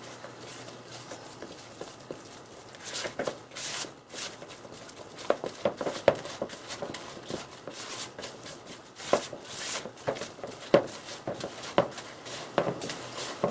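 Silicone spatula folding and scraping thick macaron batter around a plastic mixing bowl, in irregular scrapes and soft slaps. This is the macaronage stage, with the whipped egg-white meringue being worked into the almond flour and powdered sugar.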